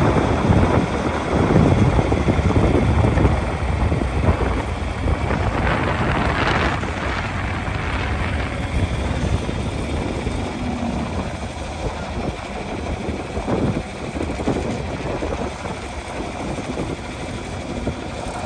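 Farm tractor engine running steadily as it pulls a hay wagon, a dense low rumble that is loudest for the first few seconds and then eases off a little.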